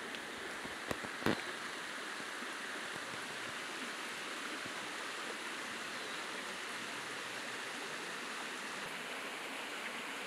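Steady rushing of a forest stream, with two sharp knocks about a second in.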